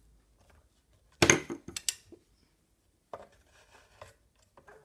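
A screwdriver working a screw out of the metal housing of a Kirby Heritage II vacuum: a sharp metallic clank about a second in, a few lighter clicks just after, then quieter scraping and clicking near the end.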